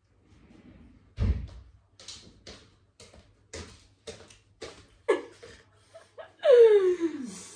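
A door thumps about a second in, followed by a run of light taps about two a second. Near the end comes the loudest sound, a voice sliding steeply down in pitch for about a second.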